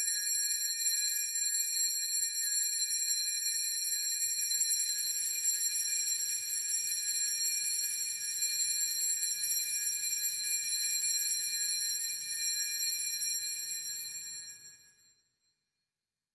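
Altar bells rung continuously at the elevation of the host during the consecration: a steady, high-pitched ringing that fades out near the end.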